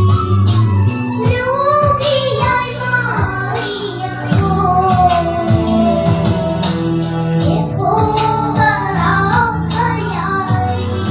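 Two young girls singing a Christian song together into microphones through a PA system, over instrumental backing music with sustained bass notes and a steady beat.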